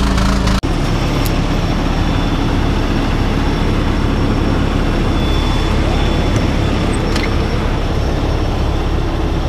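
A motor vehicle running: a steady low engine rumble with road and wind noise. The sound breaks off sharply about half a second in and carries on as an even rumble.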